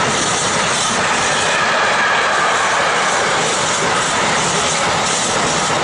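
Container freight train's wagons rolling past at speed: a steady, loud noise of steel wheels running on the rails.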